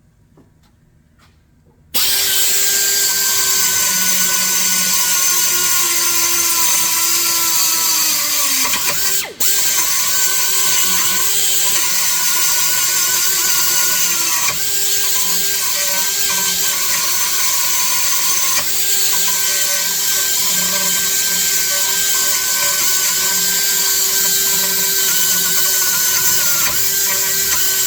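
Die grinder starting about two seconds in and running with a high whine and hiss as it grinds out a hole. Its pitch sags each time the bit is pressed into the work and recovers when it eases off, with a brief drop about nine seconds in.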